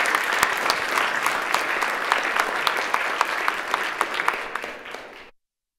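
A roomful of people applauding, many hands clapping together; the clapping thins out near the end and then cuts off suddenly.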